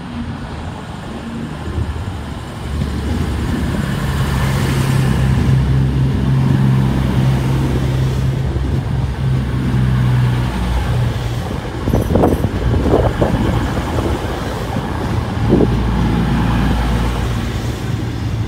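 CrossCountry Voyager diesel multiple unit running along the platform past close by, its underfloor diesel engines giving a steady low drone that grows louder about three seconds in. A few sharp wheel clanks come in the second half.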